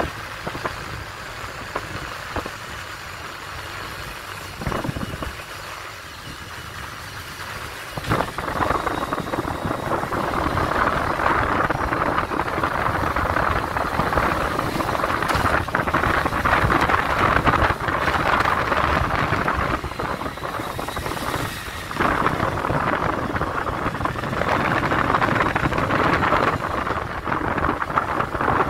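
Wind and road noise from a BMW touring motorcycle on the move: a steady rushing that grows louder about eight seconds in and dips briefly about three-quarters of the way through.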